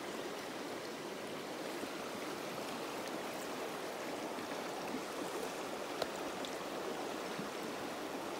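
Shallow river water running steadily over a stony bed, with a single sharp click about six seconds in.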